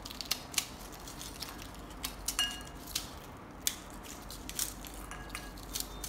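Crisp deep-fried maida puris being broken apart by hand: an irregular run of sharp crackles and snaps, with a couple of light clinks as pieces land on a ceramic plate.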